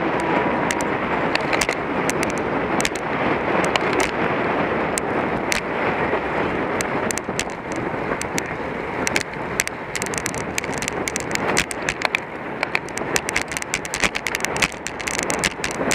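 Wind rushing over the microphone of a camera on a moving racing bicycle, with steady rolling noise and many sharp little clicks and ticks that come thicker in the second half.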